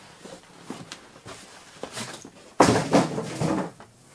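Cardboard box and paper wrapping handled as a heavy wrapped amplifier is lifted out and set on a wooden table: light clicks and rustles, then about two and a half seconds in, a sudden loud rush of rustling and scraping that lasts about a second.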